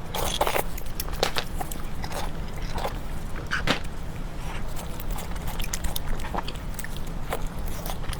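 A person eating close to the microphone: irregular wet chewing and biting clicks, several a second, over a steady low hum.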